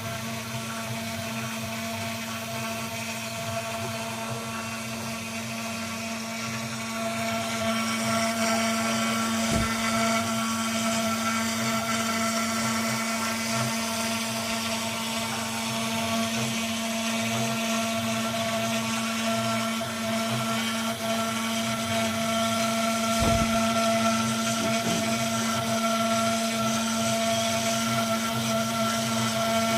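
CNC 6040 router's 2.2 kW spindle running with a steady whine while it engraves plywood, the cutting noise growing louder about seven seconds in. Two brief low knocks come through, about ten seconds in and again past twenty.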